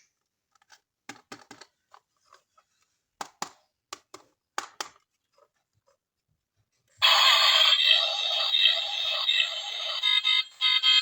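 Scattered light clicks and taps of plastic toys being handled. About seven seconds in, a loud buzzing electronic sound starts abruptly.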